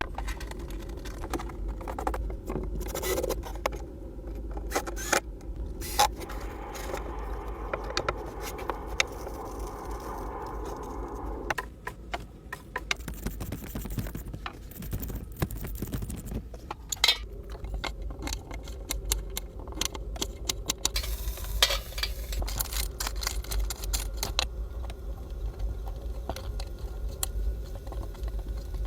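Camp cooking handling sounds: many small clinks, knocks and scrapes over a steady low rumble.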